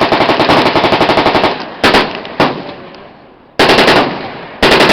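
Fully automatic machine-gun fire in bursts: a long rapid burst of about a second and a half, two single shots, then two shorter bursts.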